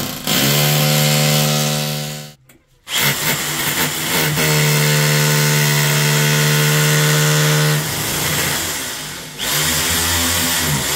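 A corded rotary hammer drill boring into the masonry above the wall tiles, its motor giving a steady hum. It runs in bursts: a short stop about two and a half seconds in, a long even run that eases off at about eight seconds, and a final burst in the last second and a half.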